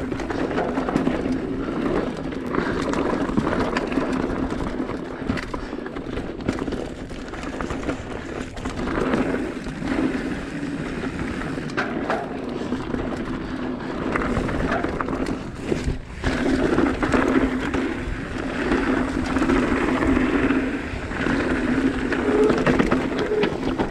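Mountain bike rolling over a rough, rocky trail: steady tyre noise and a hum, with the bike rattling and clattering irregularly over the rocks.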